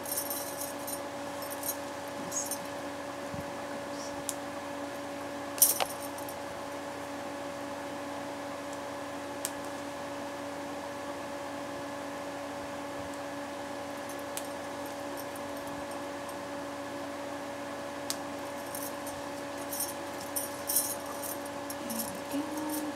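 Stacked bangle bracelets jangling and clinking on the wrists as the hands move, in scattered short bursts, loudest about six seconds in and again in a cluster near the end, over a steady hum.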